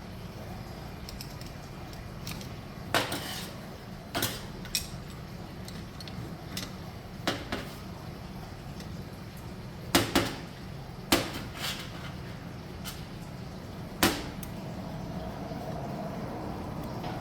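Scattered metal clinks and knocks of tools and engine parts being handled on a workbench during a dirt bike engine rebuild, over a steady low hum. The loudest knocks come about ten seconds in and again near fourteen seconds.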